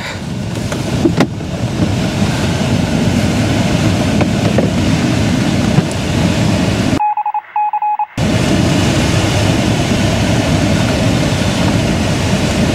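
Steady rush of airflow around a motor glider's cockpit as it glides with its engine stopped and the propeller standing still. About seven seconds in, the rush drops out for about a second while a high electronic beep sounds twice.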